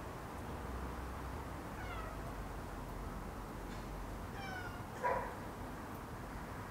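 An animal calling in the background: a short call falling in pitch about two seconds in, another about four and a half seconds in, then a louder brief sound just after five seconds, over a steady low hiss.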